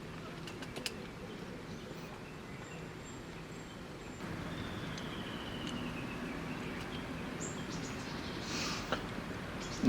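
Outdoor background ambience with faint bird calls and a few light clicks; the background grows slightly louder about four seconds in.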